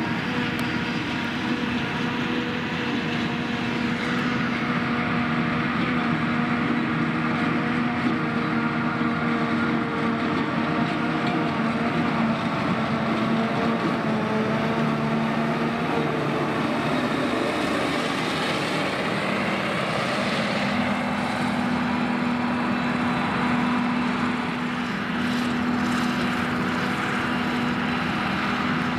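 Claas Jaguar 970 self-propelled forage harvester chopping grass at work: a loud, steady engine drone mixed with the noise of the tractor pulling the trailer alongside. The pitch shifts slightly about two-thirds of the way through.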